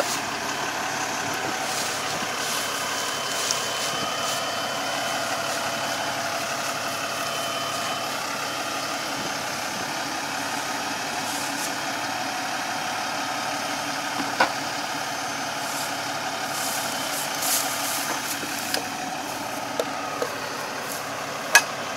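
The crane truck's diesel engine idling steadily, with a few short sharp knocks over it.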